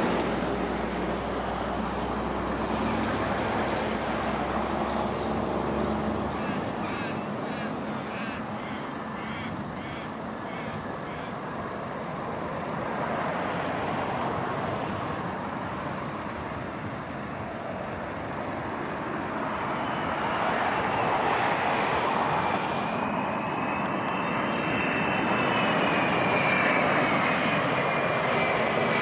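Airbus A330's twin jet engines on final approach, gear down: a steady jet rumble growing as it nears. About two-thirds of the way in, a high engine whine comes in and slowly falls in pitch.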